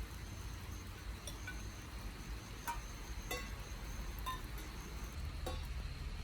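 Rain dripping onto hard surfaces: scattered light clinks and ticks, about five in all, over a steady low rumble.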